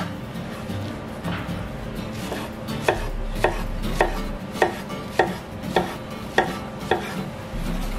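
Chef's knife cutting through a peeled pineapple and striking a plastic cutting board: a run of about eight sharp chops, roughly two a second, starting about three seconds in.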